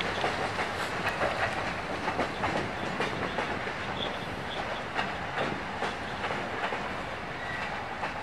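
Freight train's hopper cars and caboose rolling past, the wheels clicking irregularly over the rail joints.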